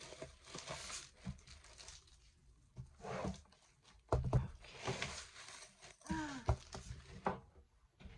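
Plastic packaging and bubble wrap crinkling and rustling in irregular bursts as it is handled and unwrapped. A short murmur of a woman's voice comes about six seconds in.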